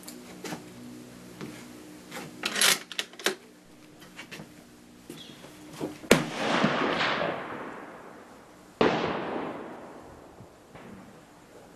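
Two gunshots on a shooting range, about three seconds apart. Each is a sharp crack followed by a rolling echo that fades over a second or two, and the first is the louder. Before them come a few quick sharp clicks and knocks.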